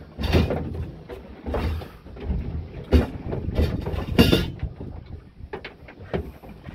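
Wind buffeting the microphone over water slapping against a small aluminum boat, with a sharp knock about three seconds in and a louder burst just after four.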